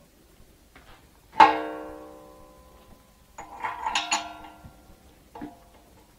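Steel parts of a Cabela's 1 hp meat grinder clanking and ringing as its coarse grinding plate is taken off to change to the fine plate. One sharp metallic clank about a second and a half in rings on for over a second, a flurry of clinks follows about four seconds in, and there is a lighter knock near the end.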